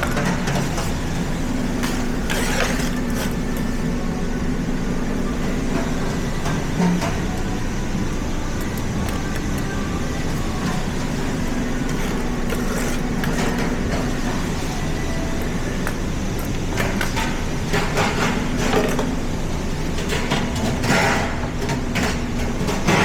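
A steady mechanical drone with a low hum, and scattered short clicks and rustles that come more often in the last few seconds.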